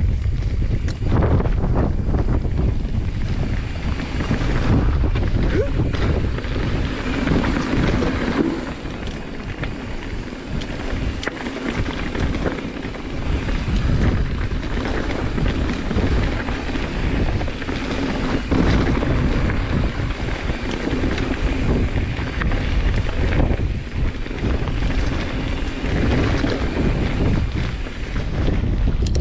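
Wind buffeting an action camera's microphone during a mountain-bike descent, over the rumble and clatter of the bike's tyres on a rough dirt trail.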